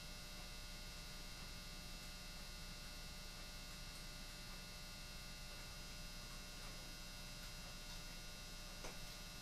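Steady, faint electrical hum with a faint click shortly before the end.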